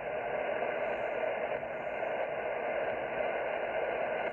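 Ham radio transceiver on 7.268 MHz lower sideband (40 meters) putting out steady band static through its speaker, a hiss held to the voice range, while no station is transmitting on the net frequency.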